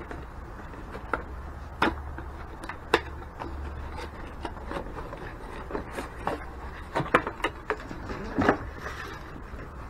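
Rummaging through a scanner's box and its packed accessories: irregular rubbing and rustling with small clicks and knocks, a few of them sharper, as pieces are lifted out.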